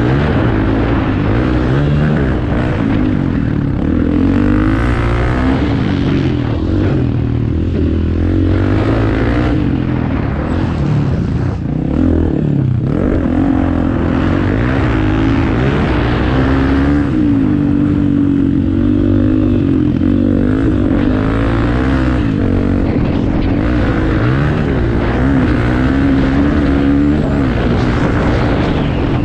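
Off-road racing motorcycle engines running loud, rising and falling in pitch as riders rev and shift.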